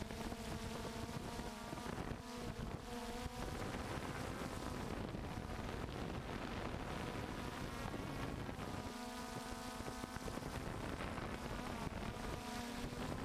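DJI F550 hexcopter's six electric motors and propellers buzzing as it flies, the pitch shifting a few times as it manoeuvres, with wind rushing over the on-board camera's microphone.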